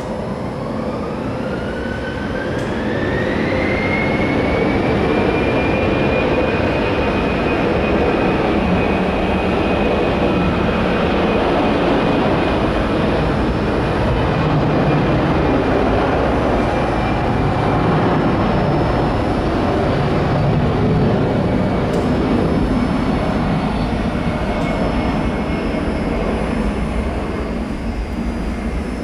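Airbus A320-214's twin CFM56 turbofan engines spooling up to takeoff thrust: a whine rises in pitch over the first few seconds, then holds steady over a dense rumbling engine noise as the jet accelerates down the runway on its takeoff roll.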